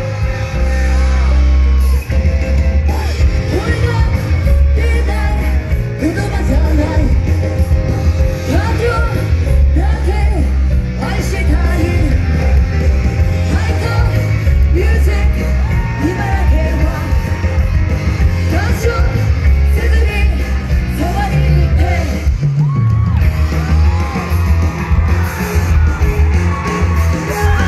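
A pop song played loud through a festival PA, with heavy bass and female vocals singing over the beat.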